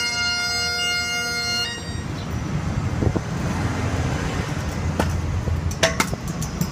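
A held, droning pitched tone that cuts off sharply about two seconds in. It gives way to a stunt scooter's wheels rolling on a concrete sidewalk, with a low rumble and a few sharp clicks and knocks toward the end.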